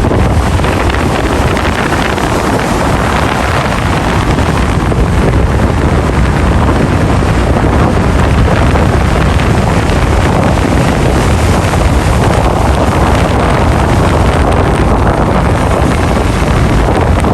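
Sea waves washing in, with wind rumbling on the microphone: a loud, steady wash of noise that swells a little every few seconds.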